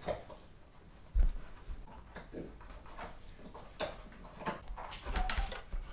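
Soft clicks, taps and rustles of hands working a small plastic part into the front loop of a bicycle helmet, with a dull low bump about a second in and a few more near the end.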